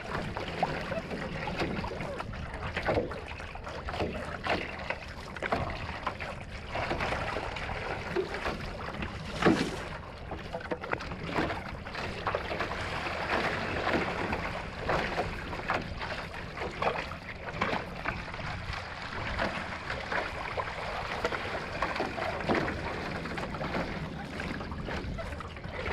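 Paddle strokes and water splashing around a one-person outrigger canoe moving through sea chop, the blade catching and splashing over and over with no steady beat. One louder hit comes about nine and a half seconds in.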